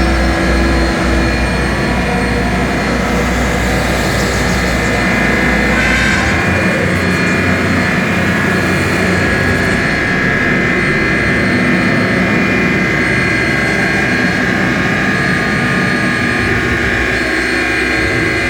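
Dense electronic noise drone from homemade oscillators and circuit-bent electronics: many sustained tones held at once over a hissing wash, with a deep low rumble that cuts out about six seconds in.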